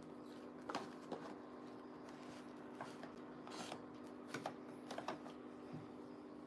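Quiet room tone: a steady low hum with scattered faint clicks and light rustles.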